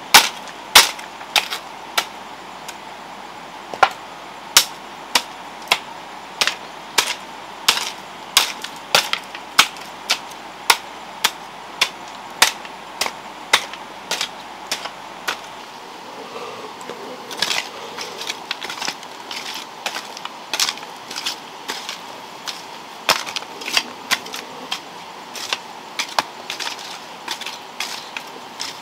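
A hand hoe chopping into soil in repeated sharp strikes, about one to two a second.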